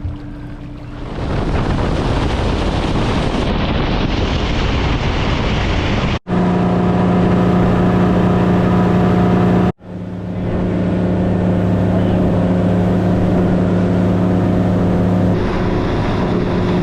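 Yamaha outboard motor on a boat running at speed: a steady engine drone under a loud rush of wind and water. It gets louder about a second in and is cut off abruptly twice, about six and about ten seconds in.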